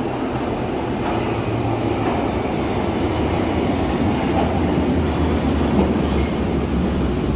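Berlin U-Bahn train pulling into an underground station, a steady rumble of wheels on rails that grows gently louder as the cars roll in along the platform.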